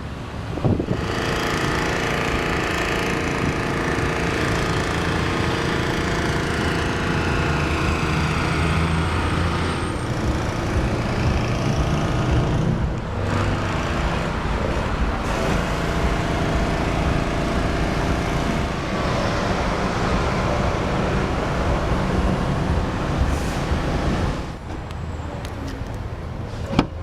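Steady motor-vehicle noise: engine tones over a constant rush, shifting in character about 13 seconds in and quieting slightly near the end.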